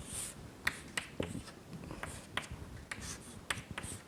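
A pen writing out an equation: a string of short scratchy strokes and light taps.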